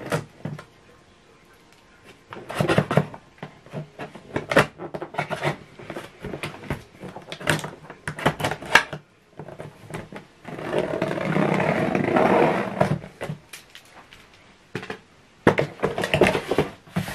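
Cardboard printer box being handled and opened: knocks, scrapes and rustles as the tape is cut and the box is moved, with a steadier stretch of scraping about two seconds long near the middle.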